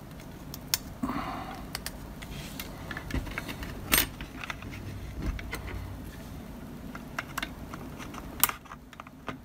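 Light handling noise from a small circuit board with ribbon cables being lifted out of a plastic electronics housing: scattered small clicks and taps, the loudest about four seconds in and another near the end.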